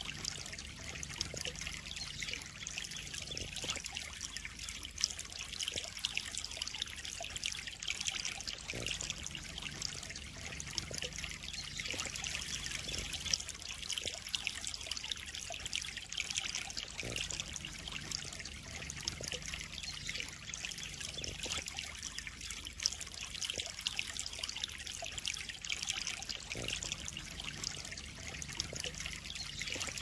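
Water trickling and splashing steadily into a koi pond, an even, continuous hiss.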